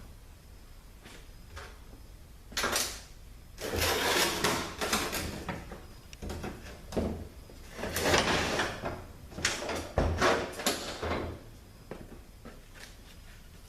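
Metal scraping and clunking in irregular bursts as a THM-350 transmission's housing and parts are moved and handled, with a few dull knocks.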